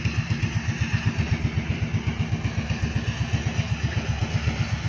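DJI Agras T30 six-rotor agricultural drone in flight, its rotors giving a steady low hum that pulses evenly, several times a second.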